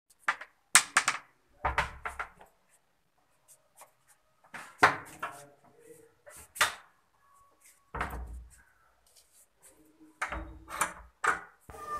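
Handling noise from a phone being carried while walking: irregular knocks, rubs and a few low thumps.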